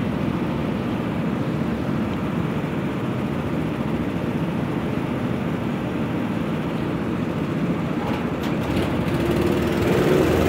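Several small go-kart engines idling together in a steady low drone; near the end one engine's note rises as it is given some throttle.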